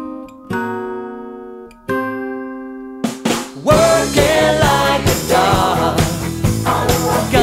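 Live band music: a couple of guitar chords struck and left ringing, then about three and a half seconds in the full rock band comes in with drums and a singer.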